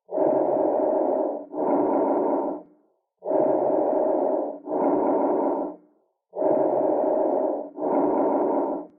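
Bronchovesicular breath sounds heard through a stethoscope over the chest. There are three breath cycles, each a rushing inhalation followed by an exhalation of about the same length, with a brief gap between the two. The equal inspiratory and expiratory phases are the hallmark of normal bronchovesicular breathing.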